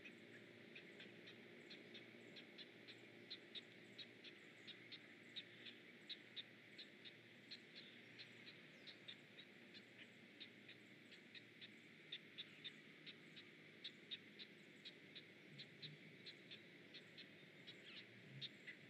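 Great blue heron chicks in the nest giving faint, rapid ticking begging calls, evenly spaced at about three a second, over a low steady hum.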